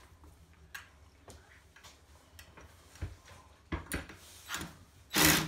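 Light clicks and taps as a screw on the bit of a DeWalt cordless impact driver is set against a blind bracket. Near the end the driver starts up in a loud short burst, driving the screw into the plugged hole.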